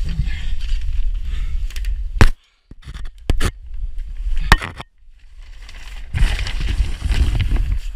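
Handling noise of a body-worn action camera rubbing and bumping against clothing: low rumbling and scraping, with a very loud sharp knock about two seconds in and smaller knocks about three and a half and four and a half seconds in, then rustling that builds near the end.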